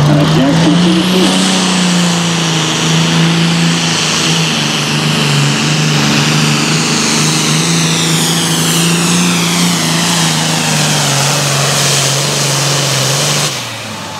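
Super Farm pulling tractor's turbocharged diesel engine running flat out under load as it drags the weight-transfer sled, with a high whine falling in pitch through the second half of the pull. Near the end the engine is shut down and the sound drops off sharply as the pull ends.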